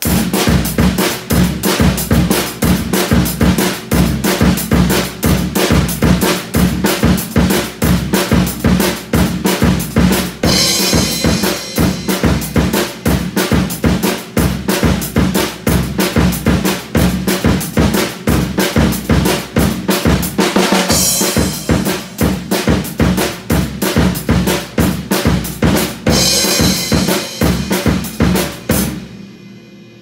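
Tama drum kit played in a steady, busy groove of bass drum and snare, with Paiste PST cymbals washing in three times: about a third of the way in, two thirds of the way in, and near the end. The playing starts abruptly and stops shortly before the end, leaving a faint ring.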